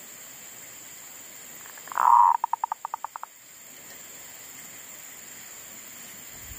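Zebra dove (perkutut) cooing close by, about two seconds in: a loud drawn-out opening note followed by a quick run of about eight short coos. A steady high-pitched insect hum runs underneath.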